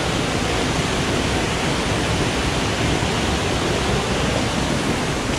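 Water from a small waterfall rushing steadily.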